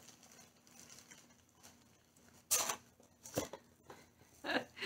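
Clear plastic wrapping rustling and crinkling in a few short bursts, about halfway through and again a second later, with a brief vocal sound near the end.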